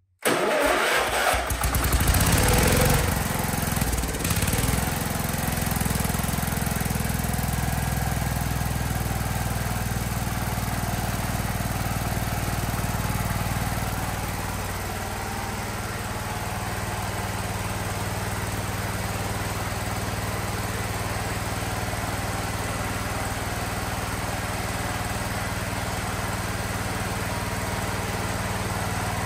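Wheel Horse 314H garden tractor's single-cylinder Kohler engine firing up at once and running, uneven and louder for the first few seconds, then settling to a steadier, slightly quieter run about fifteen seconds in. The engine is burning oil badly, a sign that it is hurt.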